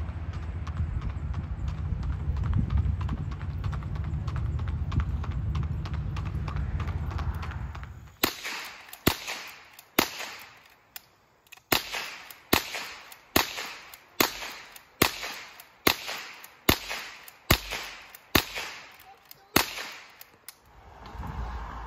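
A long gun fired again and again from the saddle of a standing horse: about fifteen sharp cracks, roughly one every half second to a second, each ringing briefly. Before the shooting there is a steady low rumble with faint hoof clops on pavement.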